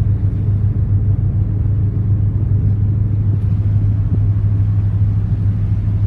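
Container ship's engine running underway, a steady low drone with a deep hum that does not change.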